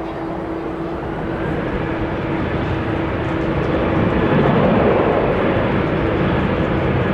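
Airbus A350-900's Rolls-Royce Trent XWB jet engines running on the runway: a steady whine with one held tone, and a rumble that swells louder about three to four seconds in.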